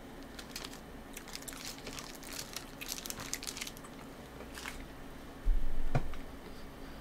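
Crinkling and clicking of a gum wrapper being handled, in quick irregular crackles. Near the end a single loud, low thump.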